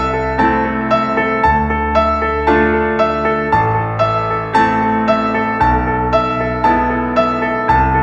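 Background instrumental music: a steady, gentle melody with a note about twice a second over slowly changing low notes.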